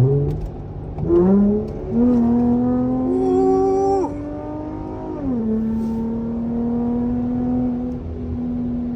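V6 car engine with a mid-muffler-delete exhaust, accelerating hard. The revs climb, break once about a second in, and climb again until about four seconds in. Then they fall back and settle into a steady exhaust drone at cruising speed.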